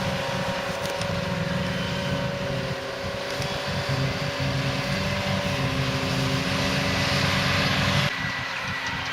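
Silage harvesting machinery running steadily: diesel engines under load with a steady whine over them. The hiss drops away suddenly about eight seconds in.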